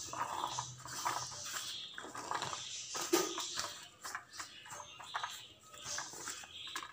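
A hand spreading damp boiled peanuts across a paper tissue: irregular crinkling of the paper and soft clicks of the nuts knocking and rolling against each other.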